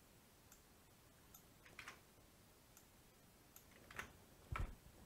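Faint computer keyboard keystrokes, a few scattered single clicks as code is typed, with a soft low thump near the end.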